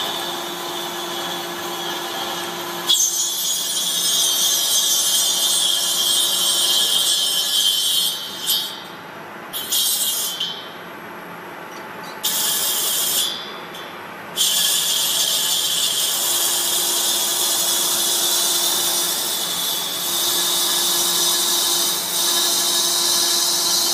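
Metal lathe with its cutting tool facing a large spinning metal disc: a steady high-pitched hiss and whine over the hum of the running machine. The cut starts sharply about three seconds in, breaks off and resumes three times around the middle, then runs on steadily.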